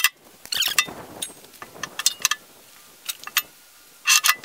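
Heavy steel thumb parts clanking against a steel backhoe bucket as they are set in place: a string of metal knocks, each with a short ring, loudest about half a second in and again near the end.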